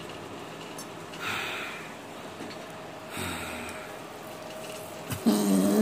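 A man breathing out hard through the nose three times, then a drawn-out groan starting near the end, in pain under Graston metal-tool scraping of the IT band.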